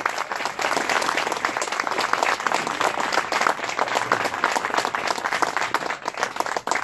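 A small crowd applauding, many hands clapping together, the clapping thinning out near the end.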